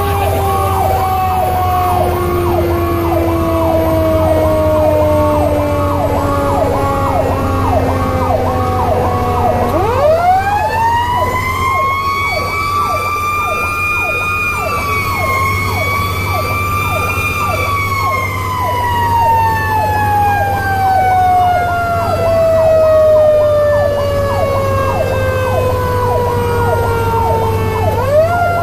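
Fire truck sirens heard from inside the cab of a 2002 Pierce Lance rescue truck on an emergency response. One siren cycles rapidly, about three times a second. A second siren tone slowly winds down, climbs again about ten seconds in, holds, then slowly falls away and rises again near the end, all over the steady low drone of the truck.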